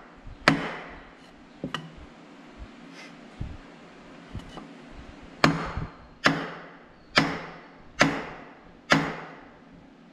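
Sledgehammer blows on a wooden 2x4 held against a tractor's exhaust manifold, knocking the force-fit manifold loose. One heavy blow near the start and a couple of lighter knocks, then five heavy blows a little under a second apart, each ringing out briefly.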